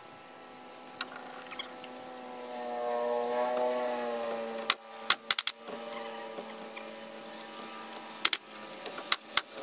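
DeWalt pneumatic coil nailer driving nails into wooden fly rafters: a quick run of about four sharp shots about five seconds in, then two pairs of shots near the end. Under them runs a steady hum that swells around three seconds in.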